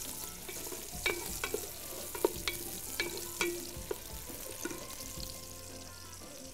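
Chopped onions sizzling as they fry in oil in an aluminium pot, stirred with a wooden spatula that knocks against the pot about seven times, several knocks leaving a brief metallic ring.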